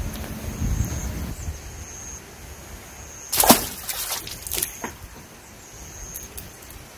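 A landed fish splashing and sloshing in a wet landing net: one sharp splash about three and a half seconds in, followed by a few smaller ones. Wind rumbles on the microphone in the first second or so.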